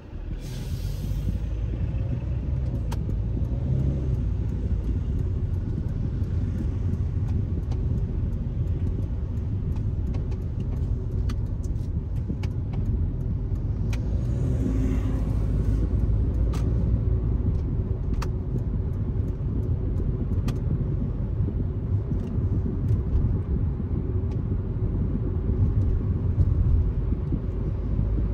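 Steady low rumble of a car travelling on a highway: tyre and road noise with engine hum, coming up abruptly at the start.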